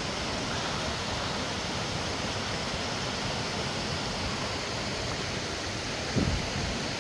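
Steady rushing of a canyon creek, with one brief low thump about six seconds in.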